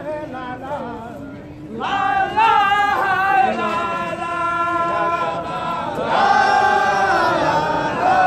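A crowd of men singing a religious chant together in long held notes. The singing dips for about a second, the group comes back in loudly about two seconds in, and it swells again about six seconds in.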